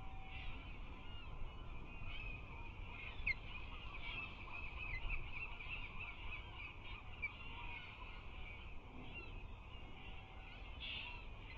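Osprey calling: a long series of short, high chirps, densest about five seconds in, over a faint steady low rumble.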